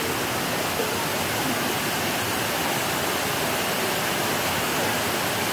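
Steady rush of water cascading over rock ledges into a pool, with no pauses or changes.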